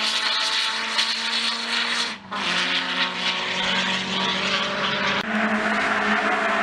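Turbocharged Honda Civic Type R EP3's four-cylinder engine running hard at steady, high revs. The sound drops out briefly about two seconds in, comes back slightly lower in pitch, and breaks again for an instant just after five seconds.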